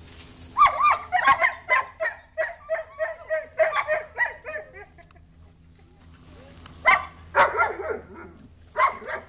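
A dog barking in a rapid run of about four barks a second for roughly four seconds, then two shorter bursts of barking near the end.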